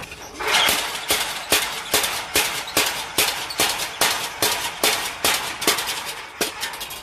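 Belt-driven power hammer pounding an axe blade on its anvil, about two and a half blows a second, each with a sharp metallic clang.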